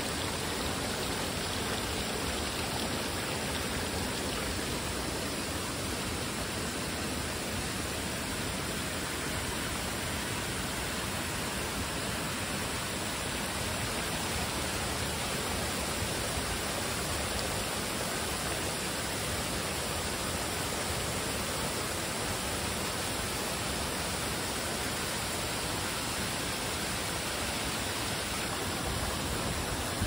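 Waterfall: the steady rush of falling water, even and unbroken throughout.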